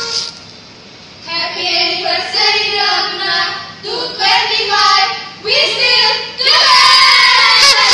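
Group of women singing short phrases together, with a louder, fuller passage starting near the end.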